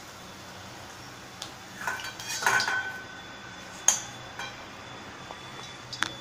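Stainless steel slotted spoon scraping and clinking against a steel kadhai and plate as fried paneer cubes are lifted out of the oil, with a brief ringing scrape about two seconds in and a sharp clink about four seconds in.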